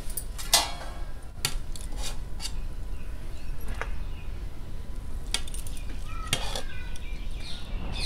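Serving spoon clinking and scraping against a cooking pot and plate as cooked biryani is dished out: a string of sharp clinks, irregular and a second or so apart, over a low steady hum.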